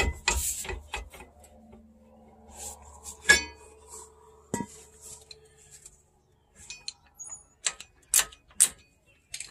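Several sharp metallic clinks and knocks from working on a van's parking brake hardware (shoes, adjuster and brake rotor). The loudest hit, about three seconds in, rings briefly.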